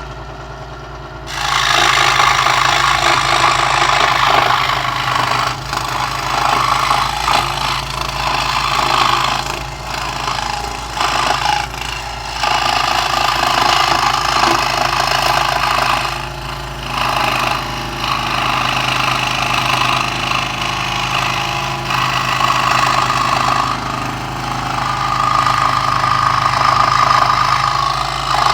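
Central Machinery 16-inch scroll saw running with a steady motor hum. About a second in, its blade starts cutting thin plywood, a loud rapid rasping that carries on with a few short dips as the cut is steered.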